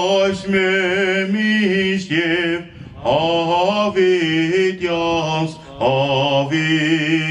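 Armenian church chant: one voice singing unaccompanied in long, wavering held notes, breaking off briefly twice between phrases.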